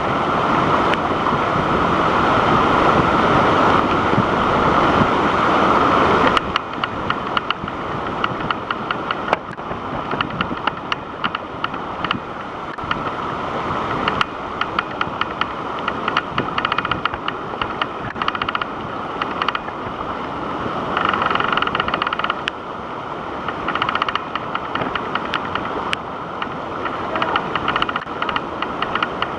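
Waterfall's rushing water, a loud steady noise. About six seconds in it drops in level, and many short clicks and taps come through on top of it.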